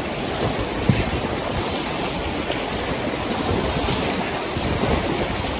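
Steady rush of creek whitewater splashing around an inflatable kayak running a rapid, with a short knock about a second in.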